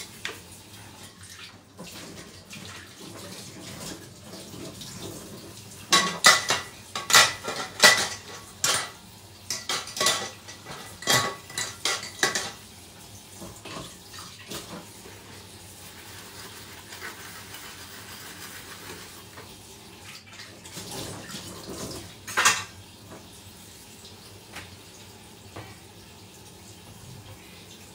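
Dishes and cutlery clattering at a kitchen sink while a tap runs. A busy run of sharp, ringing clinks goes on from about six seconds in to about twelve, and a single louder clatter comes later.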